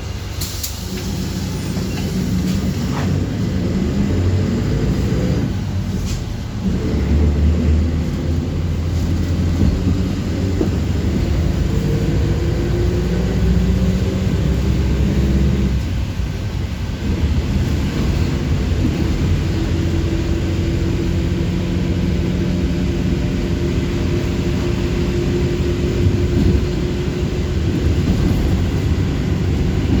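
Bus engine and drivetrain running as the bus drives, a steady low rumble whose pitch rises and falls, with brief drops about six seconds in and again halfway through.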